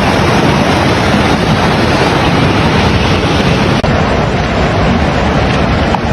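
Violent storm wind blasting across a phone microphone: a loud, unbroken rush of noise.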